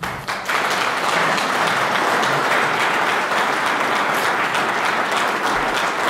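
Audience applauding, breaking out suddenly and then holding at an even level.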